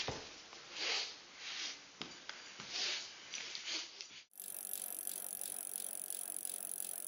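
A person sniffing hard through the nose several times in short, irregular sniffs. About four seconds in there is a sudden cut to a steady, fast mechanical ratcheting click.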